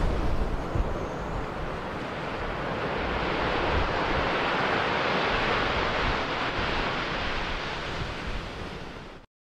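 Steady rushing of sea surf and wind, swelling a little through the middle and cutting off abruptly near the end.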